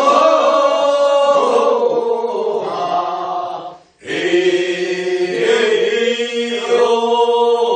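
A group of voices singing the drawn-out refrain of a Korean rice-paddy weeding work song (non maeneun sori, first weeding) in two long held phrases, with a short breath break about four seconds in.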